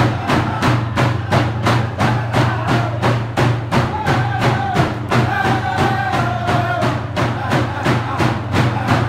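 Dene hide hand drums beaten together in a steady, fast, even rhythm, the music of a Dene drum dance. About four seconds in, the drummers' voices come in singing long held notes over the beat.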